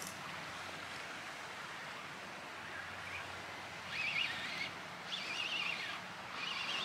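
Fishing reel being wound, a wavering high whirr in short spells from about four seconds in, as slack line is taken up after a bite, over a steady hiss of wind and sea.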